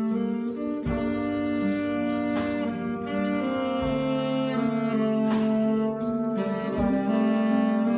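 Trombone and a second wind instrument playing a slow tune in long held notes, in harmony, over sustained low bass notes.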